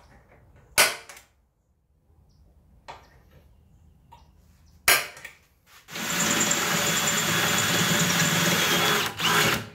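Two sharp metallic impacts a few seconds apart while hole positions are marked on a sheet-metal cab mount panel. Then a DeWalt cordless drill runs steadily for about three seconds, drilling a pilot hole through the panel, and stops, followed by a short second burst near the end.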